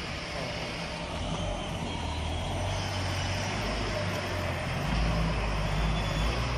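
Forklift engine running with a steady low rumble that grows louder about five seconds in.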